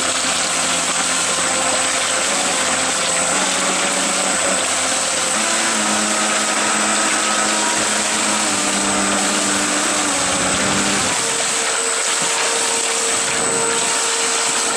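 Electric jet-surfboard drive unit running in a test tub: a brushless motor and ESC whine over the loud rush of the water jet churning the tub. A steady high whine runs throughout, and the motor's lower tone changes pitch about five seconds in and again around eleven seconds.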